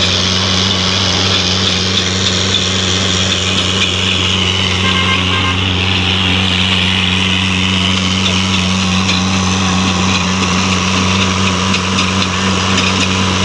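Tractor engine running steadily at a constant speed, with an even low hum.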